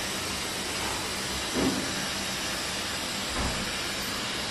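LPG gas burner under a pressure cooker hissing steadily, with two soft knocks from the cookware about one and a half and three and a half seconds in.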